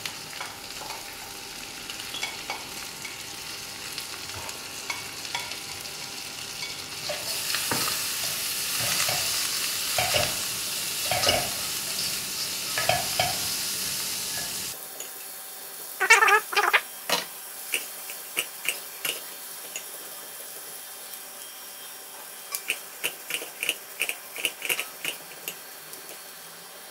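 Chopped onion, garlic, ginger and carrot sizzling in hot oil in a wok while a spatula stirs and scrapes them. The sizzle grows louder midway, then comes a series of spatula strokes against the wok, quick and rhythmic near the end.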